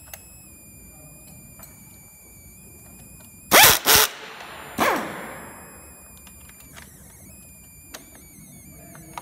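Handheld power screwdriver driving screws into the massage chair's roller-mechanism frame: three short runs about a second apart, each winding down in pitch as it stops.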